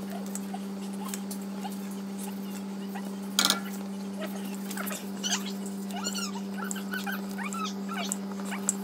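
A metal spoon scooping salt and sugar from a clay pot and tipping it into a steel pan of water, with one sharp clink about three and a half seconds in. A steady low hum runs underneath, and a run of high, short squeaky chirps comes in the second half.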